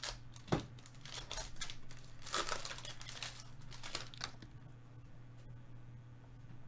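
Foil wrapper of a Panini Prizm baseball card pack being torn open and crinkled as the cards are pulled out: a run of crackling rustles with a sharp snap about half a second in, dying away after about four seconds.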